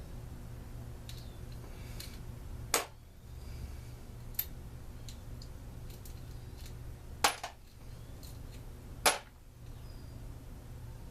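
Small metal engine parts and hand tools clicking and clinking as a two-stroke engine is reassembled: three sharp clicks and a few lighter ticks over a steady low hum.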